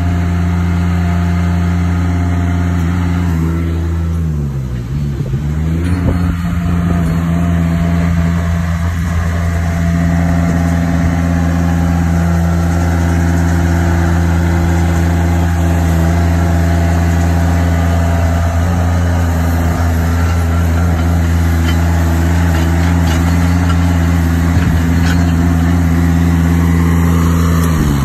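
Engine of an Altec tracked compact aerial lift running at a steady speed, one even low hum, while the machine crawls along on its rubber tracks.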